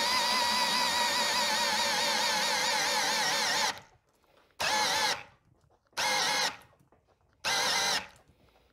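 AEG BS18C2BL 18 V cordless drill-driver in first gear, its motor whining steadily as it drives a 40 mm self-feeding auger bit into a wooden beam. A little under four seconds in the drill stops, then runs in three short bursts of about half a second each. The drill's electronics are cutting it out under the heavy load.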